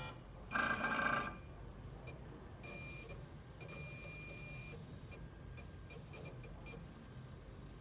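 Cutting plotter's stepper motors whining as the carriage and paper are jogged in short moves to line the red dot up on a registration mark: a louder buzz about half a second in, a steady whine for about two seconds, then several short bursts.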